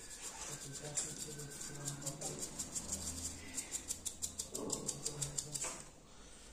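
A small brush scrubbing wet flux residue off the charge-port pads of an iPad circuit board, in quick rasping strokes that speed up to about six a second and stop shortly before the end.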